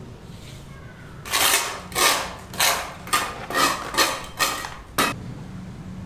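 A hand tool scraping in repeated strokes over a freshly poured concrete slab, about eight swipes at roughly two a second; the first is the longest and the last is short and sharp.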